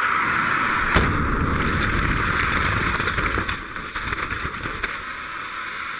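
Ethanol–nitrous oxide liquid rocket engine firing on a static test stand: a loud, steady hissing roar that starts abruptly as the injector valve opens, with a sharp crack about a second in. From about three and a half seconds it weakens and turns uneven as the burn dies down.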